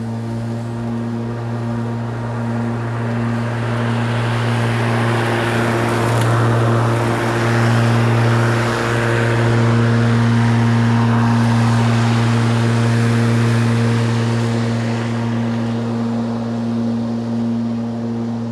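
Spear & Jackson 40V cordless rotary lawnmower running and cutting grass: a steady electric motor and blade hum over a rushing noise. It grows louder as the mower passes close, about ten seconds in, then eases off as it moves away.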